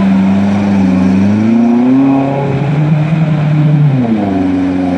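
Small Suzuki four-wheel-drive ute's engine revving hard under load as it churns through deep mud, its pitch rising and falling with the throttle. The note sinks lower for a couple of seconds near the middle, then climbs sharply again about four seconds in.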